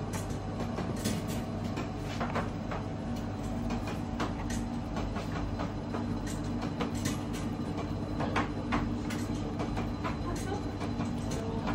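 Steady low machine hum with irregular small clicks and crackles, as hot fresh-baked cheese breads on a dark baking tray are brushed with oil.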